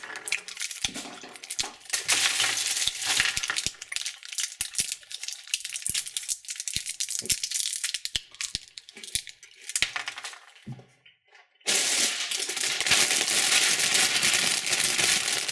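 Wrapped candies being handled: plastic wrappers crinkling and candies clicking and clinking against each other, in quick irregular crackles. It stops for about a second near 11 s in, then resumes as denser, steady crinkling.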